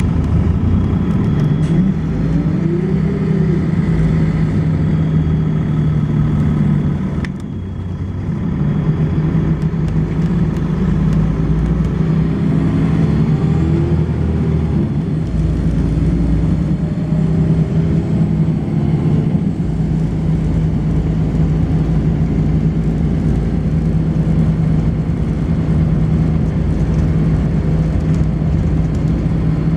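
Volvo B10BLE bus's six-cylinder diesel engine and ZF automatic gearbox running under way, with the engine note rising and falling as the bus pulls away and changes gear, and a brief dip about seven seconds in. A faint, steady high-pitched whine runs above the engine, the strange noise this bus makes.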